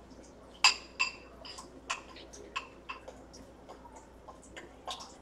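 Irregular clinks of a metal utensil against a dish, each with a short bright ring, the loudest pair about a second in.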